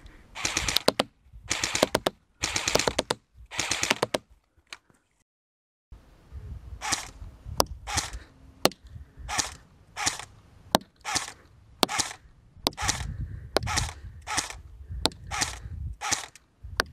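Spartac SRT-13 AK-47/AKM airsoft electric gun firing BBs: four short full-auto bursts, then, after a brief break, a steady run of single shots.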